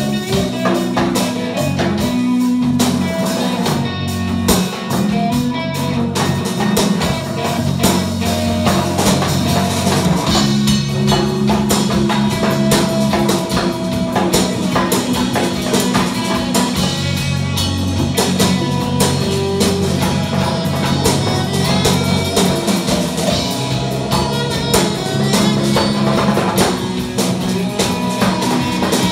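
Live rock band playing: electric guitars over a drum kit and a hand drum, loud and steady throughout.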